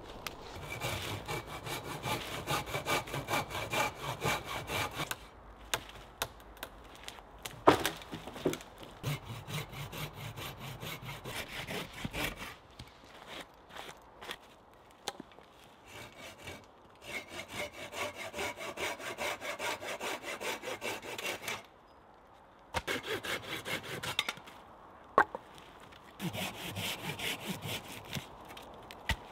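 Curved hand pruning saw cutting through a small tree trunk, in four bouts of quick back-and-forth strokes, with a few single sharp knocks between the bouts.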